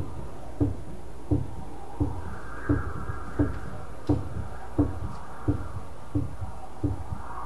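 Dance score: a steady low thudding beat, about three beats every two seconds, with a soft higher wash that comes in about two seconds in and fades again.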